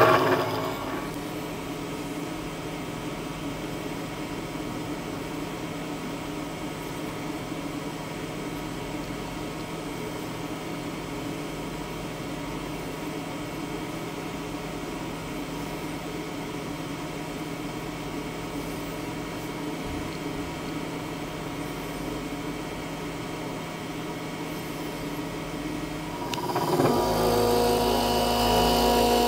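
Steady electric machine hum with a few faint constant tones. About 26 seconds in, the CNC spindle's ball-end tool starts carving the foam again and the machining gets louder.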